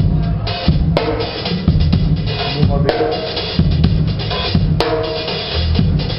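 A drum kit being played live: a busy run of drum hits over a full low end, with sharp accents about a second in, near three seconds and near five seconds.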